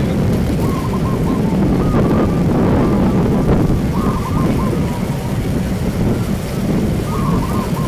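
Caged zebra doves cooing in short, repeated warbling phrases, heard several times over a loud, steady low din of crowd murmur and wind on the microphone.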